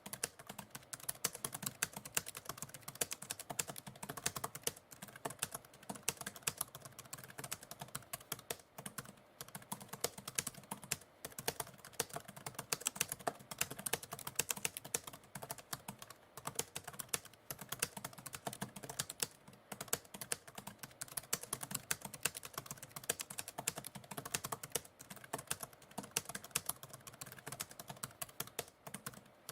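Typewriter keys clacking in rapid, continuous typing, with a few brief pauses between runs of keystrokes.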